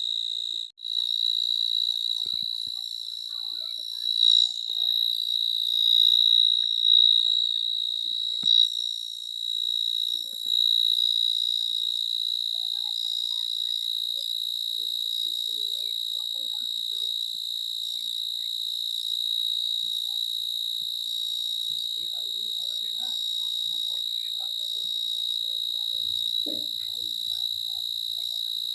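An insect trilling: one continuous high-pitched trill that cuts out for an instant about a second in, then runs on unbroken and swells louder for a few seconds in the first third.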